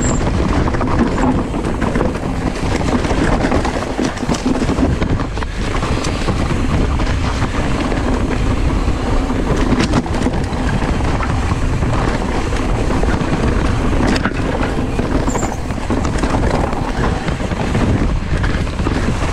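Hardtail mountain bike rolling fast down a dirt trail strewn with dry leaves: a steady rumble of knobby tyres over dirt and roots, with occasional sharp knocks and rattles from the bike.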